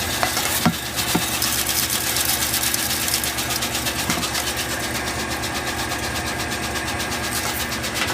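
Satake GA20RA optical colour sorter running on roasted coffee beans: a steady machine hum with a fast, dense high ticking, and a couple of short knocks about a second in.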